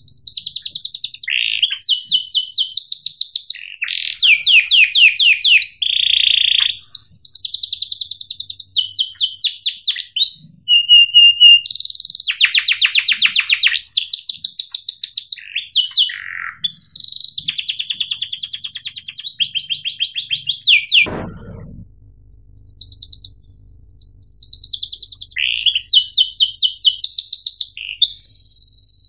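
Domestic canary singing a long, fast song of rapid rolling trills and chirps, one trill after another with hardly a gap. The song breaks off with a quick downward sweep about three-quarters of the way through, pauses for about a second, then resumes.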